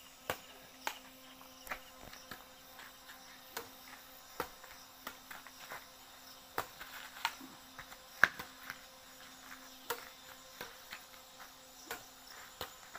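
Insects chirping steadily in the background, with a string of sharp clicks about once a second, the loudest a little after eight seconds in.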